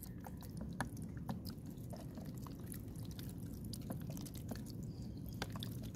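Soy sauce poured and shaken from a small bottle onto sliced raw fish in a plastic tub: faint drips and small scattered clicks over a steady low rush.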